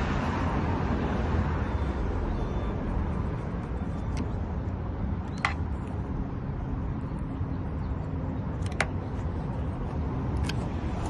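Steady low rumble of vehicle or road noise, with four short, sharp clicks spread through it.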